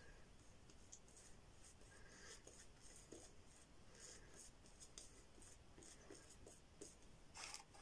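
Omega 10048 boar-bristle shaving brush lathering shaving cream on the face: faint, irregular scratchy brushing strokes, with one louder stroke near the end.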